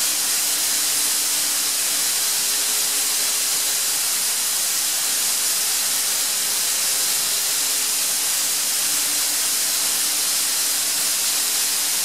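Atlas Copco GA 315 VSD FF oil-injected rotary screw air compressor running at about 2200 rpm: a steady, loud hiss of rushing air with a faint hum underneath.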